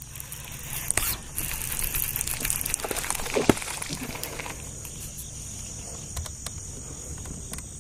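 Steady high-pitched insect chorus. A few sharp clicks near the start and a stretch of rustling noise in the first half lie over it.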